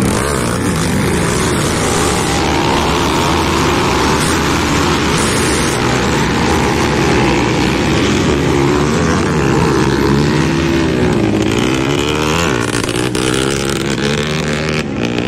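A pack of off-road motorcycles revving together at a race start, the engines rising and falling in pitch as they ride off.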